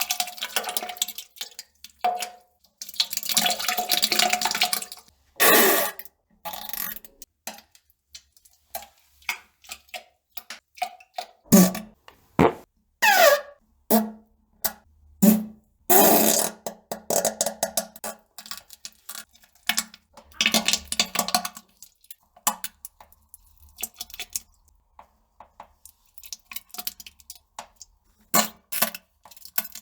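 A run of farts: irregular bursts of different lengths with short gaps between them, some long and sputtering, others short with a pitched tone, one of which slides up and down in pitch.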